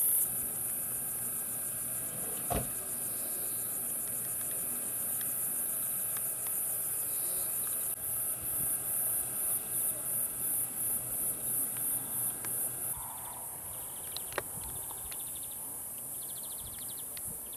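Cicadas shrilling in a high, steady chorus that pulses about three times a second for several seconds in the middle, over the faint hum of an idling engine. One sharp knock about two and a half seconds in.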